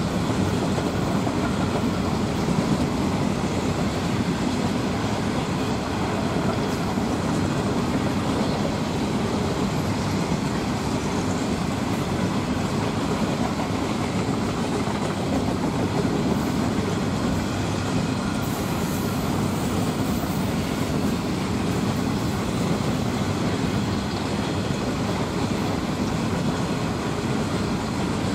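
Freight train rolling past: a steady, even noise of wagon wheels running on the rails.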